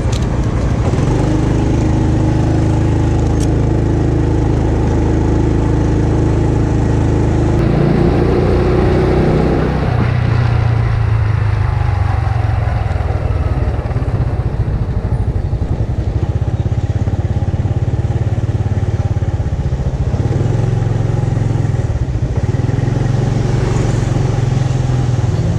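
Small engine of a Honda motor scooter running while it is ridden, its note shifting a few times as it slows and picks up speed.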